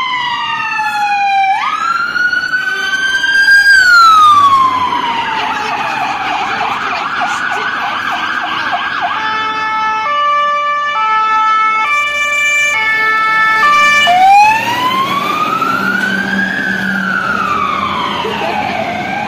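Fire engine sirens on an emergency run: two wails rising and falling out of step with each other. About nine seconds in they switch to a stepped pattern of alternating fixed tones for about five seconds, then go back to wailing.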